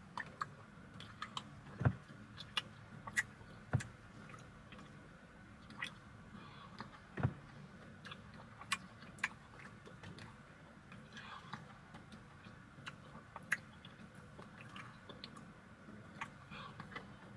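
Quiet eating sounds from a plastic spoon working in a cup of frozen blended latte: many small, scattered clicks of the spoon and mouth, with a few low thumps.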